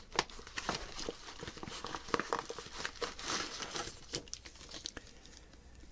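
Thin plastic bag crinkling and rustling as oscilloscope probes are pulled out of it, with scattered small clicks. It dies down near the end.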